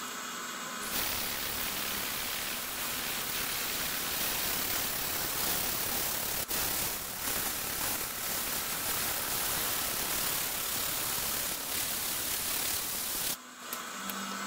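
Compressed-air blow gun hissing steadily, blowing chips out of a pocket being milled in an aluminium block, over the steady running of the milling machine's spindle. The air starts about a second in, breaks off for a moment about halfway, and stops shortly before the end, leaving the machine running.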